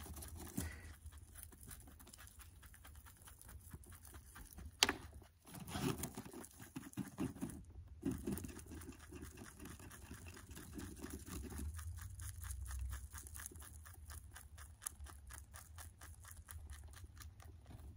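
Lop-eared pet rabbit chewing hay close to the microphone: a fast, steady run of small crunching clicks, with one sharper click about five seconds in.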